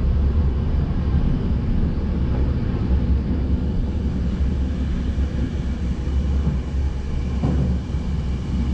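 Passenger train running along the track, heard from inside the carriage: a steady low rumble with running noise over it.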